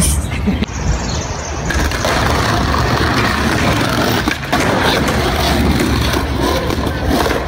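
Skateboard wheels rolling over brick pavers and concrete, a steady gritty rumble, with the board grinding along a concrete curb edge.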